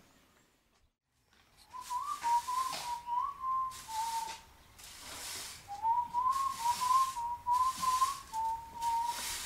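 A person whistling a tune in short phrases, with breathy air noise on each phrase. It starts about two seconds in and pauses briefly midway.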